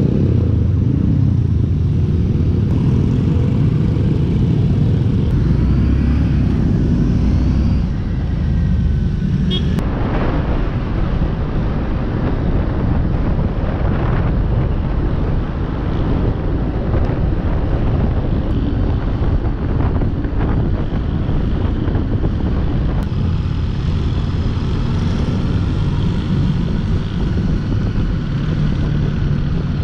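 Motorcycle on the move, heard from the rider's own bike: the engine runs steadily under a heavy rush of wind on the microphone. The sound changes abruptly about ten seconds in.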